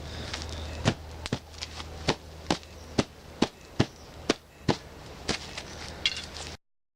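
Small fire of tinder and sticks crackling, with a dozen or so sharp pops at uneven intervals over a low steady hum.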